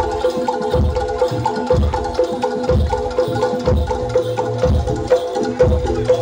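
Jaranan gamelan music: metal mallet-struck keys repeat a quick, steady melodic pattern over a deep drum beat about once a second.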